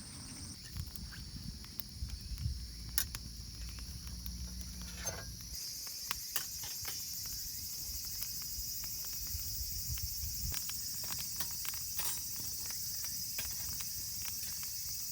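Outdoor ambience: a steady high-pitched insect chorus with many scattered small clicks and crackles.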